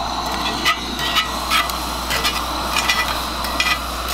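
Pacific cod fillets frying in olive oil in a cast-iron skillet, a steady sizzle, with a series of short sharp clicks and taps of metal tongs against the pan.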